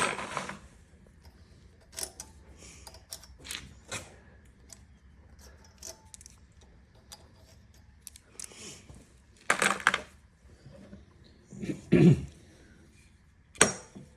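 Irregular metal clinks and a few heavier knocks from hand tools working on a small engine's cylinder head, tapping it to break it loose from the block.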